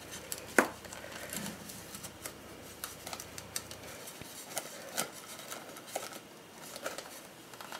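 Hands working at a tightly wrapped package to get it open: scattered rustling of the wrapping with many small crinkles and clicks, the sharpest about half a second in.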